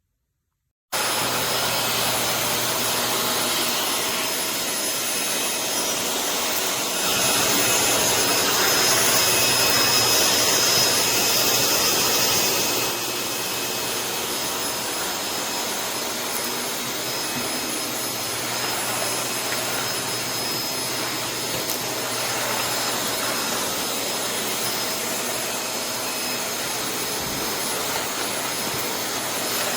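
Eureka 3670H bagged canister vacuum cleaner running: a steady rush of air with a motor whine, starting suddenly about a second in and louder for several seconds in the first half.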